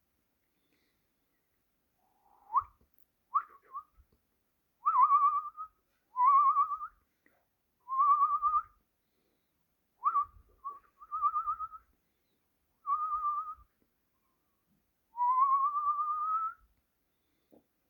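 A series of short whistled trills, each a fast warble around one pitch that rises slightly, repeated about ten times with short pauses. The longest comes near the end.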